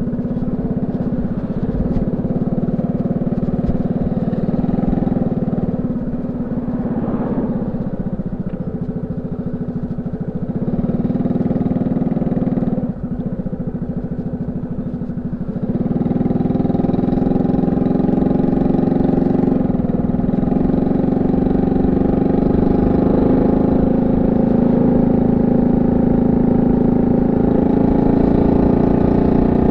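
Honda C70's small single-cylinder four-stroke engine running through its banana-style exhaust. It eases off briefly about 13 seconds in, then runs louder and steady from about 16 seconds on.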